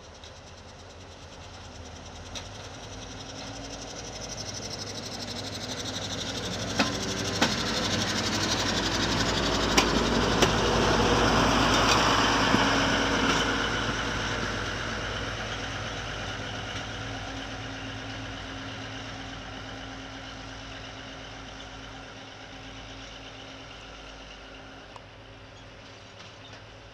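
ČD class 830 diesel railcar approaching and passing at low speed, its diesel engine running. It is loudest about twelve seconds in, then fades away. Its wheels knock sharply over rail joints a few times as it nears.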